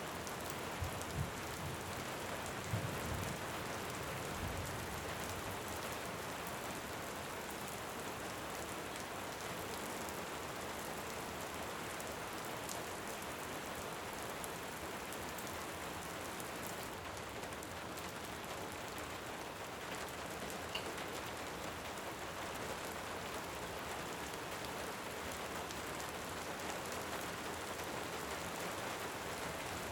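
Steady rain, an even hiss throughout, with the last low rumbles of thunder dying away in the first few seconds.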